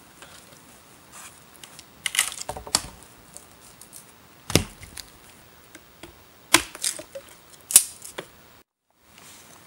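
Hatchet splitting kindling on a log: a series of sharp wooden chops and cracks at uneven intervals, a quick cluster early and then single hard strikes a second or two apart.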